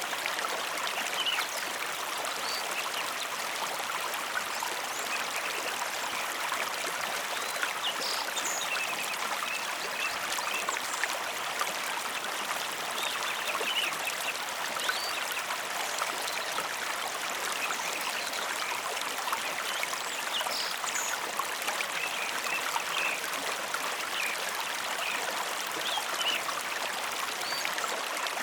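Mountain river flowing in a steady rush of water, with short high chirps scattered through it.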